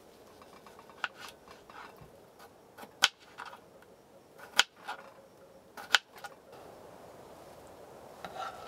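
Kitchen knife slicing tomato and cucumber on a cutting board: crisp cuts with sharp knocks of the blade meeting the board, the three loudest about a second and a half apart. The chopping stops about six and a half seconds in, leaving a faint steady hiss.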